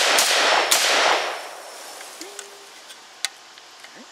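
M14-pattern semi-automatic rifle in 7.62 NATO firing the last two shots of a rapid string, about half a second apart, each report echoing and fading over about a second; then a few faint clicks.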